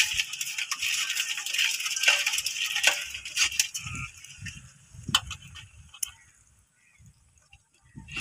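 A freshwater crab's shell crackling and rattling as it is pulled apart and broken by hand, with bangles clinking against it, for about three seconds; then a few scattered clicks before it goes almost quiet.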